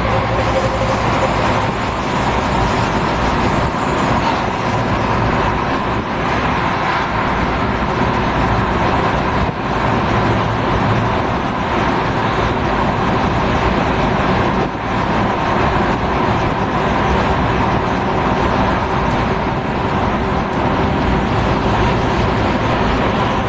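X10 electric commuter train running: a steady rumble and rush of running noise with a faint constant whine, dipping briefly twice.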